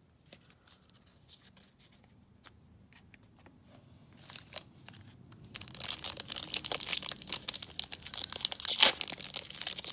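A Yu-Gi-Oh booster pack's foil wrapper being torn open and crinkled: a dense crackling that starts about halfway through, after a few seconds of faint handling clicks.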